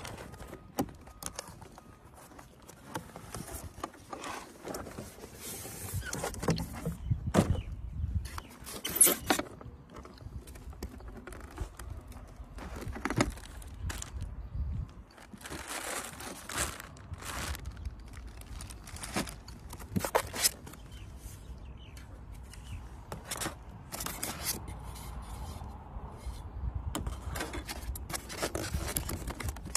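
Unpacking handling noise: a cardboard box, foam packing insert and plastic-bagged parts scraped, rustled and knocked in irregular bursts, with scattered clicks.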